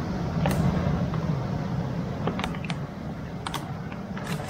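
Rough surf breaking on a rocky shore with a steady low rumble of waves and wind, and a few light clicks as a hard-plastic topwater lure and its treble hooks are handled.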